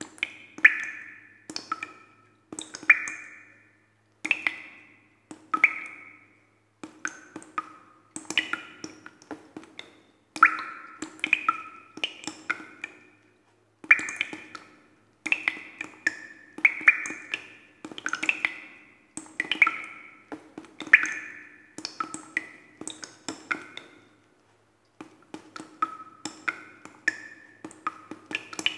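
Background music of short, high, struck notes in an irregular, tumbling pattern over a steady low hum.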